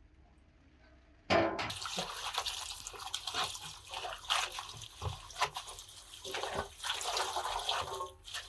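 Water pouring and splashing. It starts suddenly about a second in and stops just before the end.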